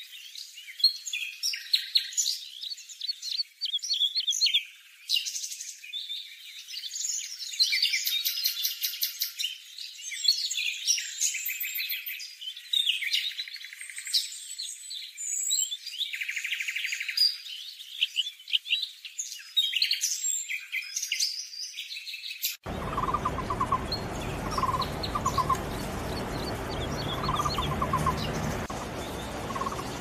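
Bird calls: dense high-pitched chirps and trills. About two thirds through, the sound changes abruptly to short low notes repeated in quick clusters over a low background rumble.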